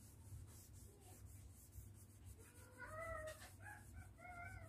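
Faint high-pitched cries, about four short rising-and-falling calls in the second half, over a low steady hum.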